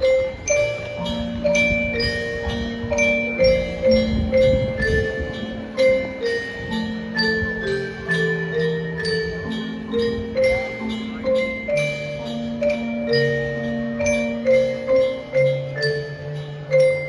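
Marching band music: a melodic passage carried by struck mallet percussion in the glockenspiel and marimba range, a steady run of ringing notes over held lower notes.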